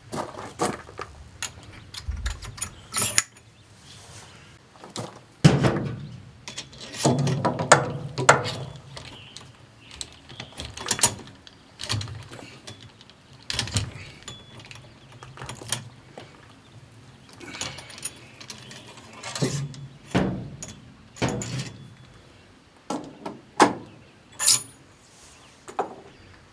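Irregular metallic clicks, knocks and short rattles of a muzzleloading rifle and its loading gear being handled between shots.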